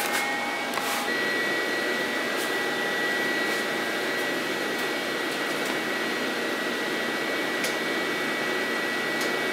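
Electric angle grinder spinning up and running steadily, a high whine over a hissing rush.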